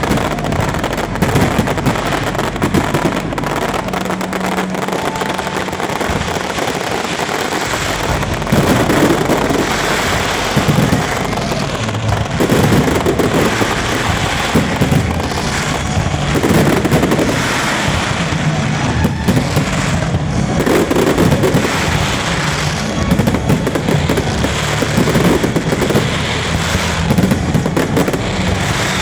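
Fireworks display: a dense, continuous crackling and popping of bursting shells, with heavier bursts every couple of seconds in the second part.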